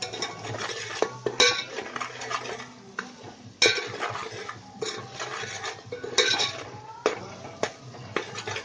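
A steel spoon stirring and scraping thick onion-tomato masala around a metal pot, with repeated sharp scrapes and clinks against the pot, the loudest about a second and a half, three and a half and six seconds in. The masala is being fried and is still a little raw.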